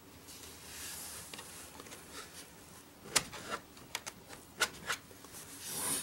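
Handling noise from a plastic laptop case being moved on a cloth mat: a soft rustle, then about five sharp clicks and taps a little over halfway through.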